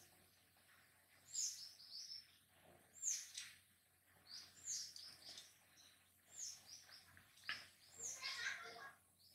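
A bird calling repeatedly, a short high chirp that sweeps downward, about every one and a half seconds.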